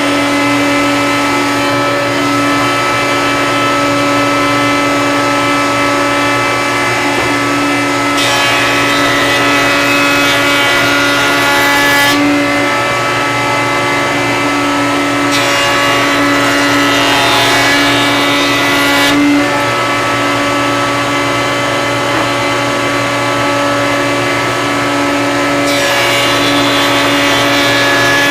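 Router in a table-saw router table spinning a vertical raised-panel bit, running with a steady high whine. Three times, about 8 s in, about 15 s in and near the end, a harsher hiss rises over the whine for a few seconds as an oak panel is fed through the cut.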